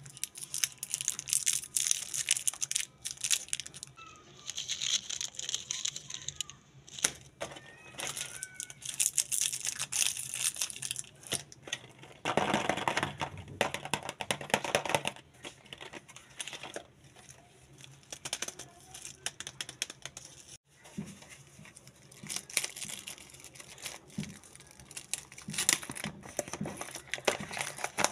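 Chocolate packaging being handled and opened: plastic wrappers and a foil liner crinkling and rustling in many sharp crackles, loudest and densest for a couple of seconds about halfway through.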